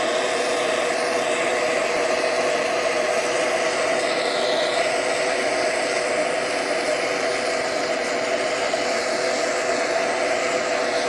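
Oxy-fuel torch flame burning with a steady rushing noise as it heats a ceramic melting dish, preheating it before borax glaze goes on.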